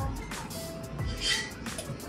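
Background music, with a brief breathy hiss a little past one second in.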